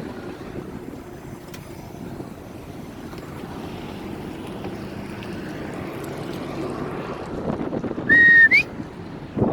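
Steady running noise of the truck, with wind on the microphone. About eight seconds in comes a short, loud, high squeal that holds one pitch and then rises sharply at its end.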